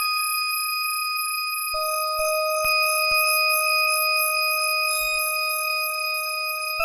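MOSTRO polyphonic FM synthesizer sounding a steady held chord in an ambient improvisation. A lower note joins about two seconds in, and the chord changes near the end.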